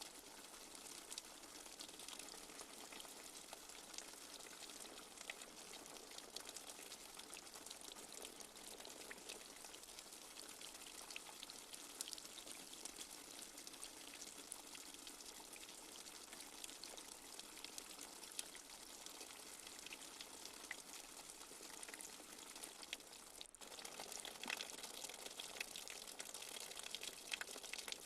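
Light rain falling: a steady soft hiss of many small drops with scattered individual drip ticks. It drops out for an instant near the end, then comes back slightly louder with more distinct drips.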